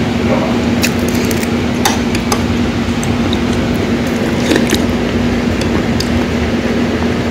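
A metal spoon clicking now and then against a stainless steel rice bowl and a soup bowl, about five light clinks, over a loud steady machine hum with one constant low tone.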